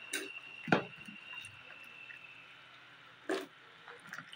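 Chunks of brinjal (eggplant) dropped by hand into a pan of simmering water with diced potatoes: a few separate soft plops and splashes, the last a couple of seconds after the others, over faint bubbling water.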